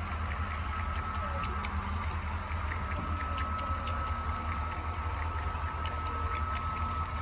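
HO-scale model train running: the low hum and thin steady whine of the locomotive's small electric motor and gearing, with irregular light clicks of wheels passing over rail joints.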